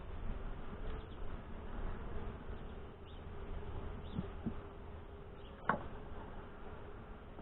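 Honey bees buzzing around an open nuc box during a frame inspection, a steady drone. A single sharp click about two-thirds of the way through.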